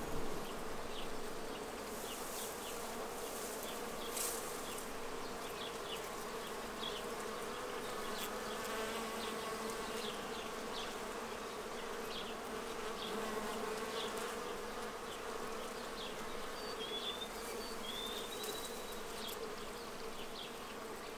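A steady buzzing hum that holds level throughout, with a few faint clicks and a couple of short high chirps near the end.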